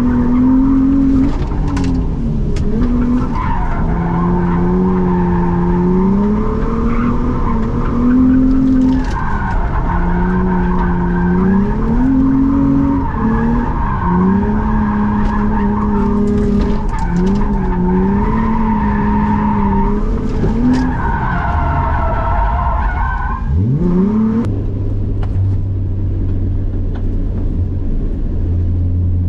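Infiniti G35's VQ35 V6 revving up and down hard through a drift run, heard inside the cabin, with tyres squealing in several long stretches. About 24 seconds in, the revs fall away and the engine settles to a steady idle.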